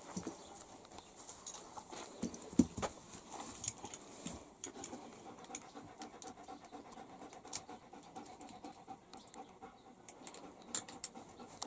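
A dog panting after a walk, with scattered small clicks and knocks, the loudest about two and a half seconds in.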